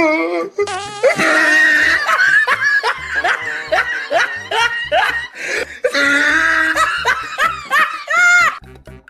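Hearty laughter in a run of short rising bursts over background music. It stops suddenly shortly before the end.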